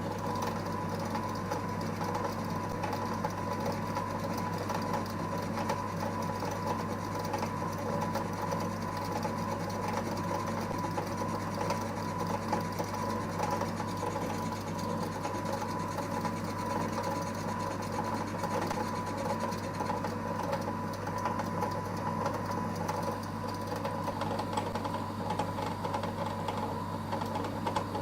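EMCO Compact 5 benchtop lathe running steadily, its motor giving a constant hum and whine.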